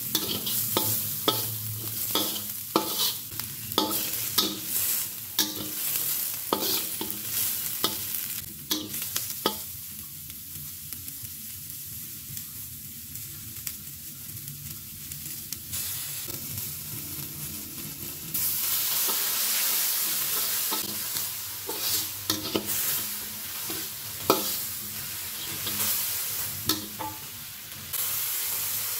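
Minced onion and garlic sizzling in a hot wok, with a metal spatula scraping and clacking against the pan as they are stirred. The stirring eases off in the middle, then the sizzle turns louder and hissier about two-thirds through, after sauce has gone in, with more spatula clacks.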